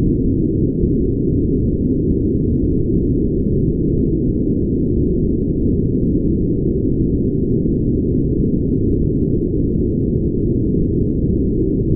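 Brown noise: a steady, deep rushing noise with no high hiss, unchanging throughout.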